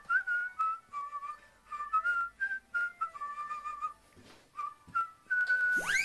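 Background music: a whistled tune of short notes stepping up and down over light, even percussion. Near the end, a quick rising whistle swoops up sharply.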